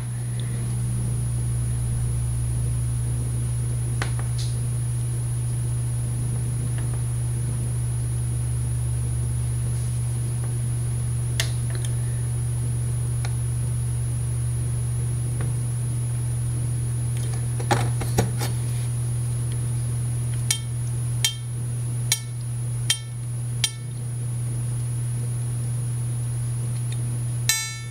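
Small tool clicks on a Seydel 1847 harmonica reed plate during reed-slot embossing, over a steady low hum. Near the end come five short ringing notes about a second apart, then one brief pitched tone at the very end.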